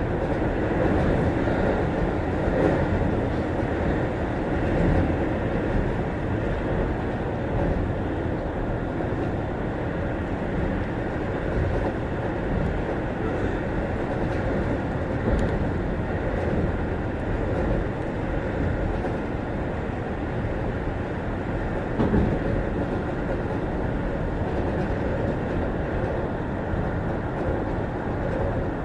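Keio 6000 series commuter train running, heard from inside the unpowered control trailer car: a steady rumble of wheels on rail, with one louder thump about three quarters of the way through.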